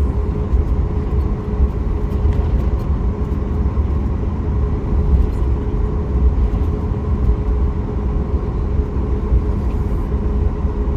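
Cabin noise of a Boeing 737 MAX 8 airliner with its CFM LEAP-1B jet engines running: a loud, steady low rumble with a constant hum above it.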